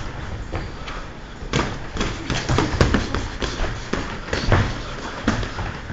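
Boxing gloves thudding and slapping as punches land in a sparring exchange: a dense run of sharp hits starting about a second and a half in.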